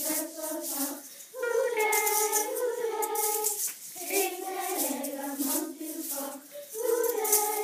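A group of children singing a chant-like song in unison, in phrases with short breaths between, with sharp percussive hits keeping a steady beat underneath.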